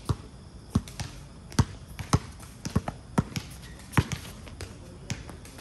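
Basketball being dribbled on a hard court during play: about a dozen sharp bounces at an uneven pace.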